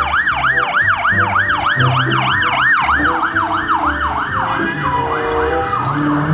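Toy police car's electronic siren wailing in quick up-and-down sweeps, about three a second, switching to a different siren pattern a little over halfway through.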